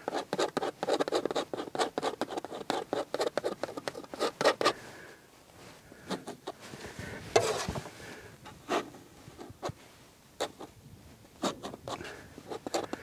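Palette knife dabbing and scraping oil paint onto a primed linen canvas: a quick run of short scrapes and taps for about the first five seconds, then a few scattered strokes.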